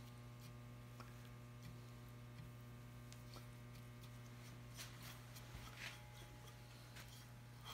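Near silence: a steady low electrical hum, with a few faint soft strokes of a small brush laying varnish on wood.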